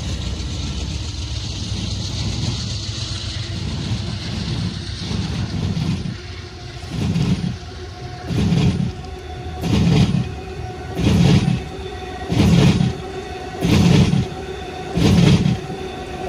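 A train rolling past: a steady rumble and hiss, which about six seconds in turns into a regular pulsing roughly every second and a half as the wheel trucks of successive cars go by. The train is a new Alstom Avelia Liberty (Acela) trainset being hauled by diesel locomotives.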